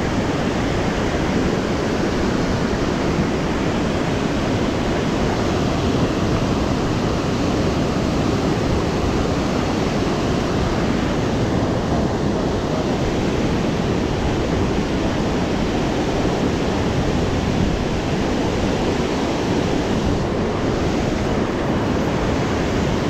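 Steady rushing of whitewater pouring over a dam spillway into the river.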